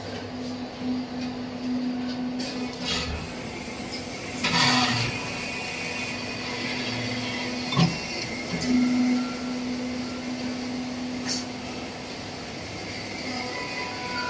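Hydraulic draw press running for deep-drawing a pressure-cooker inner lid: the power pack's motor and pump hum steadily. There is a short rushing burst about four and a half seconds in, and a few sharp metal clicks and knocks from the die set.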